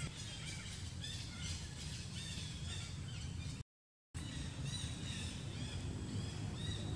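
Outdoor ambience of scattered small birds chirping over a steady low rumble. The sound cuts out to silence for about half a second near the middle, then resumes.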